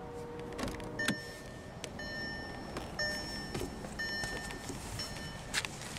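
2018 Volkswagen Beetle's electronic warning chime sounding five times, about a second apart.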